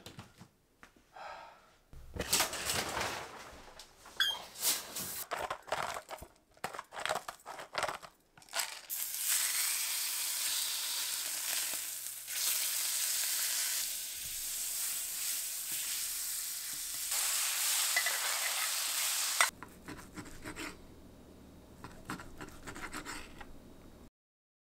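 Steak searing in a cast-iron skillet: a loud, steady sizzle that runs for about ten seconds and cuts off suddenly. Before it come irregular knocks and clatter, and after it quieter clinks and scrapes.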